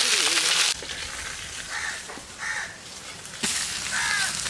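Small fish sizzling hard in hot mustard oil, cut off abruptly under a second in. Then comes a quieter stretch with crows cawing about three times.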